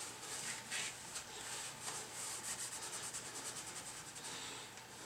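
A cloth rubbed in quick back-and-forth strokes over the bare metal front spindle of a Datsun truck, wiping it down. The strokes come fastest and loudest around the middle.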